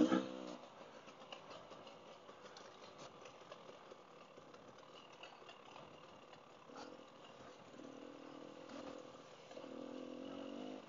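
Dirt bike engine running faintly as the bike rides single track, its note rising and falling with the throttle and growing louder over the last few seconds. A brief louder burst sounds right at the start.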